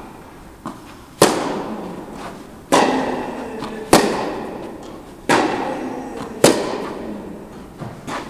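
Tennis rally in an indoor hall: rackets strike the ball five times, about every 1.3 s, each sharp hit ringing on in the hall's echo. Fainter ball bounces fall between the hits.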